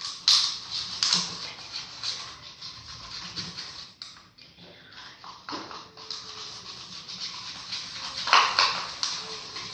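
Homemade slime of glue, detergent and cornstarch being stirred in a cup: a quick, uneven run of small sticky clicks and scrapes, with a louder burst about eight seconds in.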